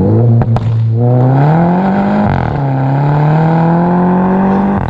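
Mini Cooper S F56's turbocharged 2.0 four-cylinder through a straight-pipe exhaust, accelerating under load. Its pitch rises, drops sharply a little over two seconds in at an upshift, then climbs again. Two sharp cracks sound about half a second in.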